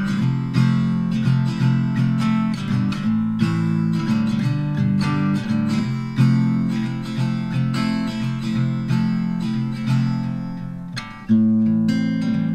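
Background music: acoustic guitar plucking and strumming a steady run of notes, fading briefly and coming back in with a strong strum near the end.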